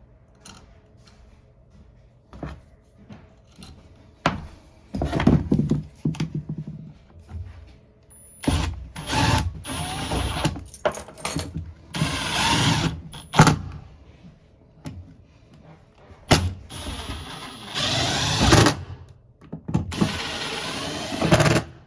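Power drill driving screws through a toilet flange into a plywood subfloor, in about five short runs of a second or two each, with small knocks and handling in between.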